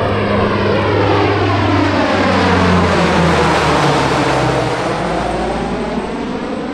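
C-130 Hercules's four turboprop engines and propellers droning loudly as it passes low overhead. The engine tones drop in pitch as the plane goes by, loudest about three seconds in, then fade as it flies away.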